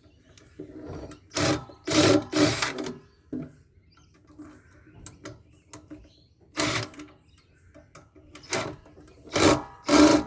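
Short harsh bursts of tool work on a solar inverter being torn down, about seven in all, some in quick pairs, with quieter gaps between.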